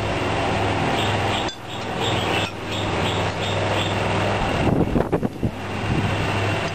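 A metal spoon clinking and scraping against small ceramic bowls over a steady background noise with a low hum, with a cluster of clinks about five seconds in.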